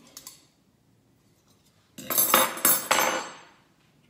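Tableware handling: a few faint clinks of metal cutlery at first, then about two seconds in a louder burst of clattering and scraping with several sharp knocks, lasting about a second and a half, as a plastic travel mug is picked up and its lid worked.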